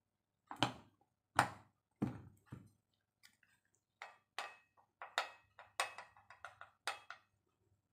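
A plate and an upturned bowl knocking and clinking together as rice is turned out of the bowl onto the plate: about a dozen short taps, the loudest about a second and a half in, then a quicker run of taps between about four and seven seconds.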